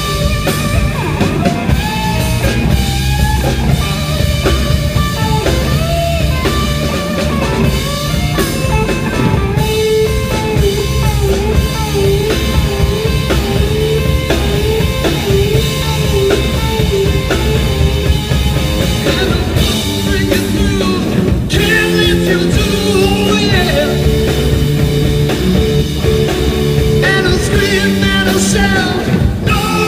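Rock band playing live, with a drum kit, bass and electric guitar.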